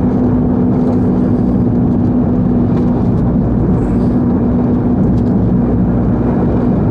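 Car driving at a steady speed, heard from inside the cabin: an even engine hum over road rumble.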